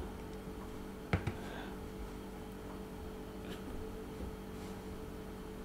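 Quiet room tone with a steady low electrical hum, and a single short click about a second in.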